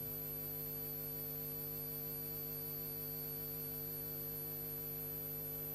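Steady electrical hum from the sound system, several fixed tones with no room sound over them: the microphones have been cut.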